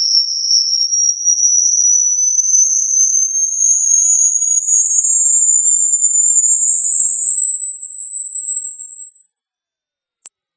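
High-pitched electronic tone gliding slowly upward throughout, a sweep played through a phone speaker so it vibrates and shakes water and dust out. It dips briefly in level near the end.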